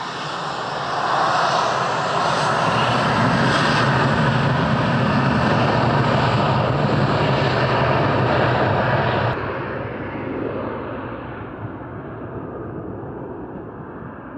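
Jet2 Boeing 737 airliner's twin jet engines running at high power as it moves along the runway: a loud, steady rushing noise that loses its high edge abruptly about nine seconds in, then fades as the aircraft draws away.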